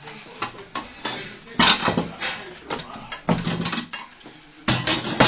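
Metal tools clinking and rattling as they are handled, in several short bursts of clatter, the loudest near the end.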